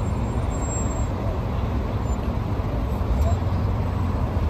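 Steady low rumble of car engines and road traffic, with no single event standing out.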